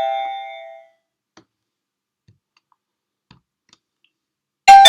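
Plug-in wireless doorbell receiver's electronic chime ringing out and fading within the first second, then a few faint clicks, and a fresh chime striking just before the end.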